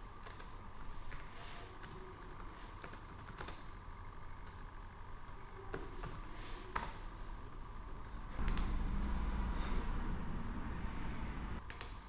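Typing on a laptop keyboard: scattered key clicks, a few of them sharper around six to seven seconds in. A louder low rumble comes in a bit over eight seconds in and stops near the end.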